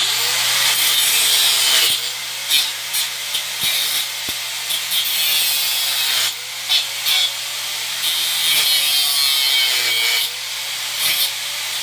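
Electric angle grinder with a cutting disc cutting off the protruding ends of steel bolts: a loud, steady grinding hiss that eases off briefly a few times as the disc lifts and bites again, the motor note sagging under load and recovering.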